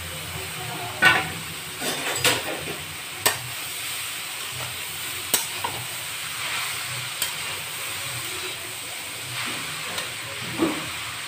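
Grated carrots sautéing in ghee in a metal kadhai with a steady sizzle, while a spatula stirs them, scraping and clicking against the pan every second or two.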